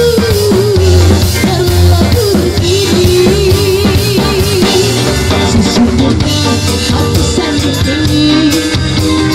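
Live band playing a song, with the drum kit loud and close: steady bass drum and snare strokes under cymbals, and a held, wavering melody line over the band.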